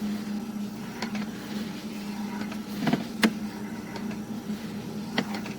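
Steady low hum with a few scattered sharp clicks and knocks, the loudest about three seconds in, as a sewer inspection camera is pushed along the line.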